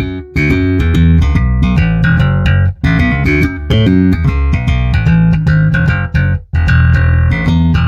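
Electric bass with both P and J pickups on, played solo through a Traynor YBA300 all-tube bass amp: a run of plucked notes with a clean tone, in phrases broken by short gaps about three seconds in and six and a half seconds in.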